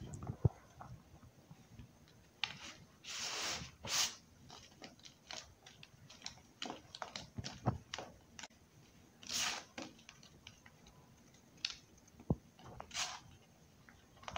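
Handfuls of sandy baking soda crumbles being crushed and sifted between the fingers: soft crunching and powdery hissing in irregular bursts, with small sharp clicks as lumps break.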